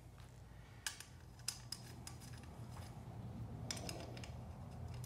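Faint, scattered metallic clicks and taps of a chrome slip-on muffler and its exhaust clamp being handled, with a small group of clicks about three-quarters of the way through.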